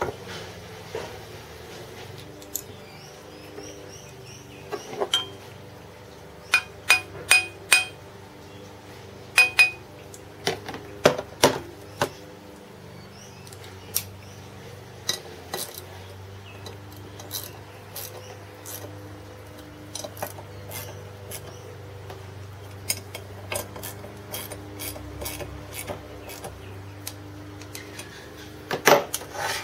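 Cast aluminium machine parts and small bolts handled on a workbench: scattered metal clinks and knocks, some ringing briefly, with a cluster of louder ones near the end. A faint steady hum runs underneath.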